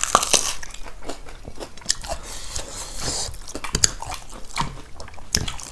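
Close-miked eating sounds: chewing and crunching of food, with irregular wet mouth clicks and smacks.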